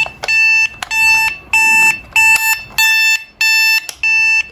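Plug-in digital alarm clock's alarm going off: a loud, high-pitched electronic beep repeating steadily, a little under twice a second.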